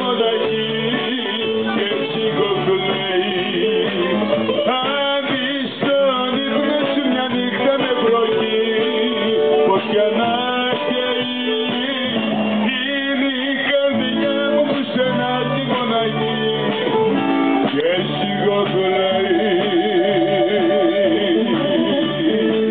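Live amplified music: a man singing into a microphone, accompanied by strummed acoustic guitar. Near the end he holds a note with a wide vibrato.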